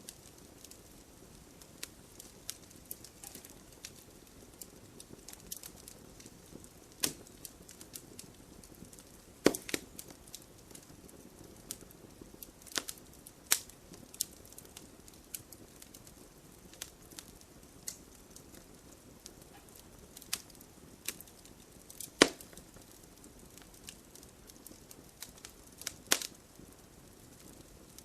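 Wood fire burning, with a soft steady hiss and scattered sharp crackles and pops of the burning firewood, a few of them much louder than the rest.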